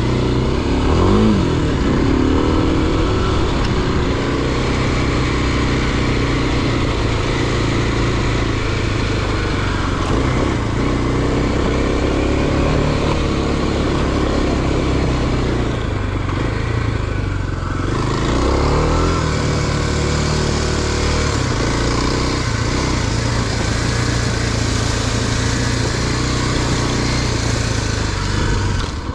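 A motor vehicle's engine running while under way, with a steady rushing noise over it. The engine's pitch changes near the start and again about two-thirds of the way through.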